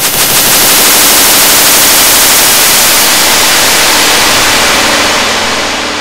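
Mutable Instruments Clouds granular module putting out harsh, dense granular noise, a loud hiss-like wash of grains, as its knobs are turned. It swells in at the start and fades over the last second or so, leaving a low steady tone.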